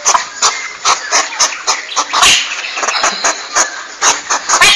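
Hedgehog huffing and snuffling: a quick, irregular run of short, noisy puffs and clicks, several a second.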